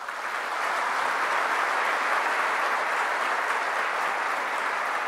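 Large audience applauding, the clapping building up in the first second and then holding steady.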